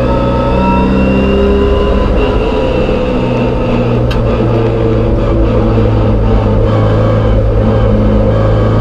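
An MGB race car's four-cylinder B-series engine running hard at fairly steady high revs, heard from inside the cockpit, with a brief click about four seconds in.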